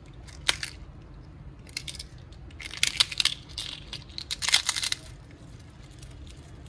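Crisp fried papdi wafers crushed and broken by hand, crackling and crunching. A short snap comes about half a second in, followed by longer bursts of crunching around two, three and four and a half seconds in.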